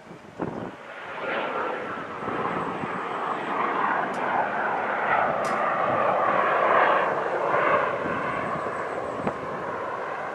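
Hawker Hunter jet's Rolls-Royce Avon turbojet running in flight, a steady jet rush with a faint whine that builds over the first couple of seconds and is loudest around the middle.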